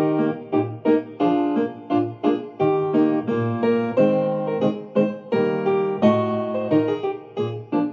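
Piano accompaniment for a cornet solo, playing a steady pattern of chords, about two attacks a second, with the cornet silent.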